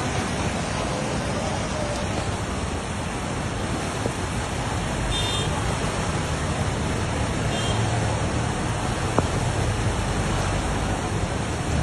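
Floodwater rushing past in a steady, dense wash of noise, swollen by heavy rain.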